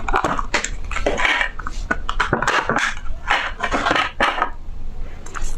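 Close-up crunching and chewing of crackling ice cream, a quick run of irregular crackles and crunches.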